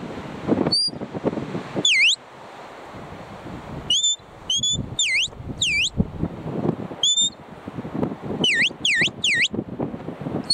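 A handler's whistled commands to a working sheepdog: a series of short, clear whistle notes, some held level and some dipping down and swooping back up, ending in a quick run of three dipping notes.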